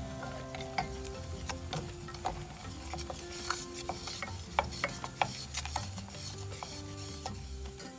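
Jaggery and water being stirred in a stainless steel saucepan as the jaggery melts, the spoon scraping and clicking irregularly against the sides and bottom of the pan.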